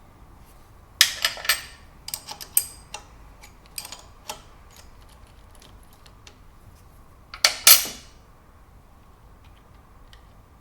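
Metal clinks and clatter of small metal parts and tools being handled, in several quick clusters, the loudest near the end, over a faint steady tone.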